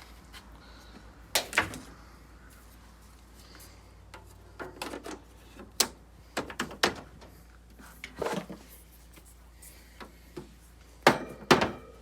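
Knocks and thumps as a 1960s Westinghouse window air conditioner is turned around and handled: about a dozen irregular bumps, the loudest about a second and a half in and near the end.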